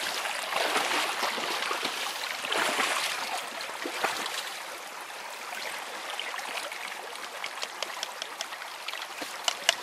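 Running water trickling and gurgling, louder for the first few seconds and then steadier, with a few sharp ticks near the end.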